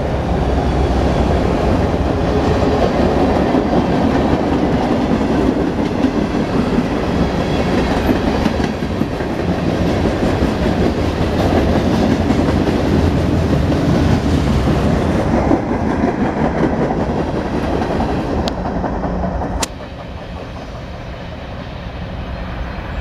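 Mixed freight train's cars (autoracks, tank car, boxcars) rolling past at close range: a steady rumble of steel wheels on rail with clickety-clack over the rail joints. A couple of sharp clicks come near the end, then the sound falls off suddenly as the end of the train goes by.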